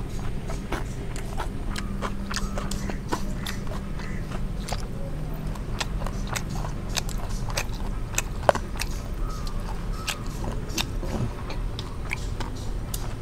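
People eating biryani: chewing and handling the food, with scattered small clicks and clatter throughout and one sharper knock about eight and a half seconds in.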